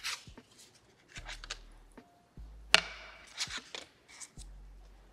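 Small handling sounds of art materials on a tabletop: scattered taps and clicks with brief paper rustling, the sharpest click a little under three seconds in.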